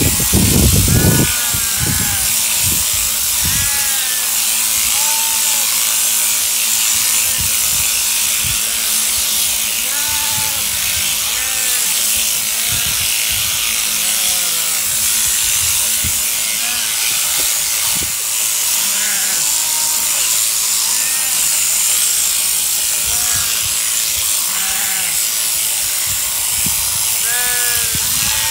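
Mechanical sheep-shearing handpiece on a jointed drive arm running steadily as it clips through a sheep's fleece, a constant buzzing hiss. Sheep bleat briefly now and then over it, and there are a few low knocks in the first second or so.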